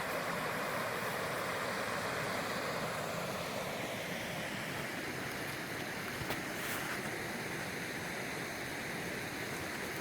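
Creek swollen with snowmelt rushing steadily, a continuous wash of water that eases a little after about four seconds.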